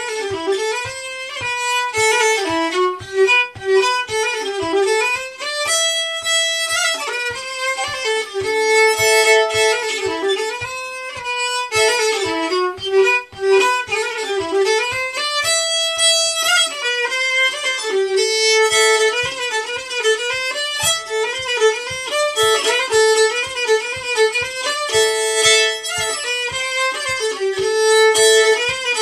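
Solo fiddle playing a fast old-time fiddle tune, bowed without accompaniment, with a soft low tap keeping the beat underneath.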